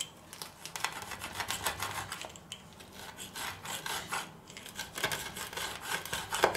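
Pizza wheel cutting through a freshly baked pizza's crisp crust on a wooden board: repeated crunching, rasping strokes, with a sharp click near the end.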